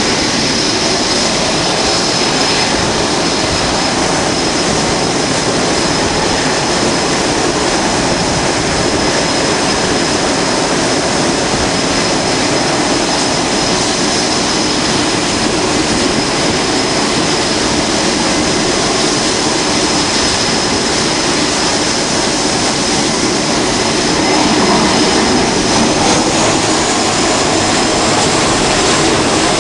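Jet engines of carrier-based F/A-18 fighters running on the flight deck: a loud, steady roar with a high whine. About 24 seconds in it grows louder and a rising whine comes in, as a jet on the catapult runs its engines up.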